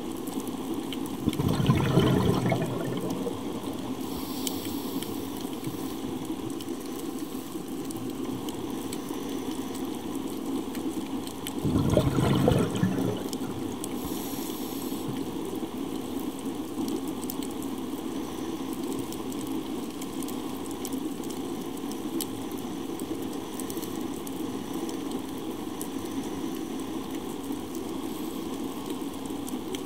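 Underwater ambience from a scuba diver's camera: a steady hiss, broken twice by a loud rush of the diver's exhaled regulator bubbles, about two seconds in and again about ten seconds later.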